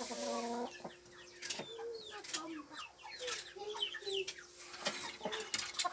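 A flock of hens and a rooster clucking, many short calls overlapping one another, with a longer call in the first second and scattered sharp clicks throughout. A faint steady hum runs underneath.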